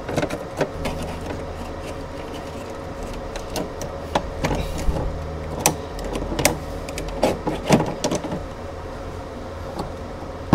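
Scattered small clicks and scrapes of fingers picking hardened, melted plastic burrs off the edge of a freshly cut hole in a plastic glove-box lid, over a steady low hum.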